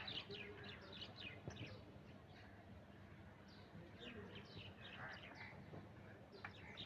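Birds chirping faintly in quick clusters of short, falling notes, over a steady low background hum.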